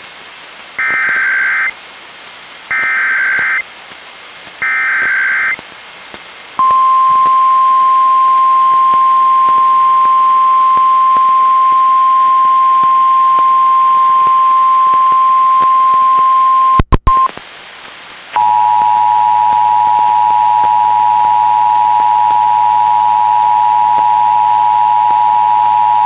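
NOAA Weather Radio Emergency Alert System tones played through a Reecom R-1630 weather radio. Three one-second bursts of warbling SAME digital header data come first, then the steady 1050 Hz warning alarm tone for about ten seconds. After a brief dropout, a steady alert tone of several pitches sounds together, the attention signal of the relayed alert.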